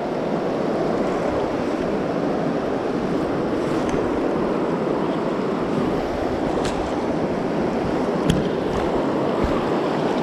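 Fast-flowing river water rushing and sloshing around an angler wading through the current, a steady wash of water noise with a few faint ticks.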